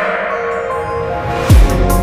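Electronic background music: a rising swell, then a heavy bass drop about one and a half seconds in.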